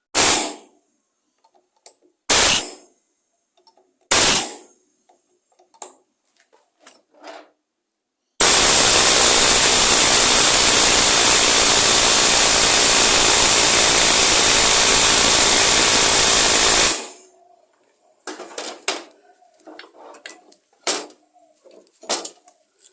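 Pneumatic air hammer driving a bolt against a stuck part on a lawn mower engine: three short blips about two seconds apart, then a long, loud run of about eight and a half seconds that cuts off suddenly, followed by faint clicks and knocks. The part is not coming loose.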